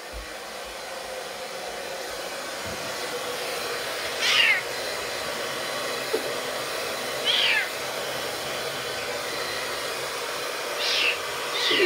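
A very young kitten mewing four times, short high cries that fall in pitch, spread a few seconds apart. A hair dryer runs steadily underneath.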